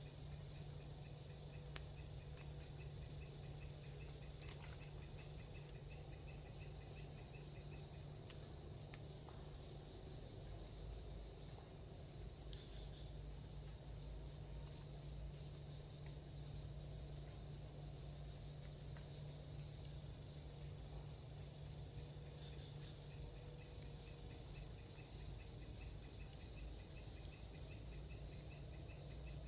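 Steady high-pitched chirring of night insects in a tropical forest, with a low steady hum beneath it.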